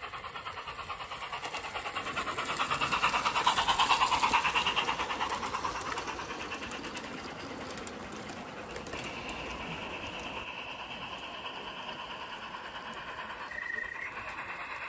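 0 gauge model train, a GWR Hall locomotive hauling chocolate-and-cream coaches, running on garden track with a fast, even clicking of wheels and running gear. It grows loud as the train passes close about four seconds in, then settles to a fainter, steady run.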